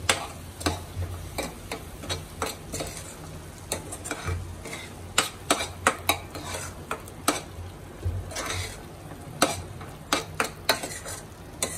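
A metal spoon stirring and scraping a thick masala paste around a stainless steel pan, with irregular clinks of spoon on steel, while the spice paste sizzles in hot oil as it cooks.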